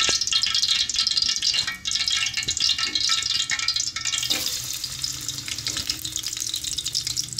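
Hot cooking oil crackling in a steel pot on a high flame. About four seconds in, sliced onions are tipped into the oil with a short knock, and the crackle turns into a steady frying sizzle.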